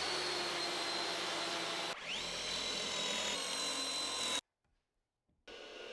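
Power drill-driver running steadily with a high motor whine, driving screws into wood. About two seconds in it stops and spins up again, then cuts off at about four and a half seconds.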